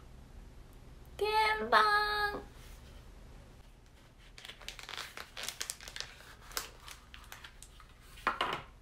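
Crinkling and crackling of packaging being handled and opened as a boxed yokan is unwrapped, scattered small crackles over the second half. About a second in, a woman's brief high-pitched vocal sound, held for about a second.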